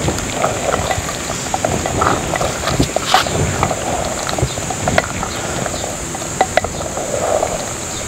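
A wooden spoon stirring lamb pieces frying in ghee in a clay pot, with scattered knocks and scrapes of the spoon against the pot and a bubbling sizzle. A steady high insect drone runs underneath.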